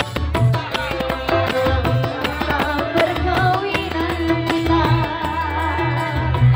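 Live band music through a PA: an electronic keyboard over a steady hand-drum beat, with a woman singing into a microphone; her wavering sung line stands out about five seconds in.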